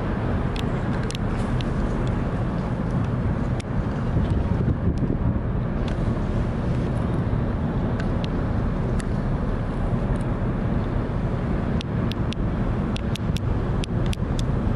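Steady low rumble of waterfront background noise, with faint short clicks scattered through it.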